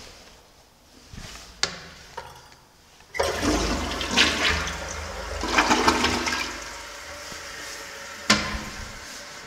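Glacier Bay tank toilet flushing. A loud rush of water starts suddenly about three seconds in and lasts about four seconds, then settles to a quieter steady run as the tank refills. There is a sharp knock near the end.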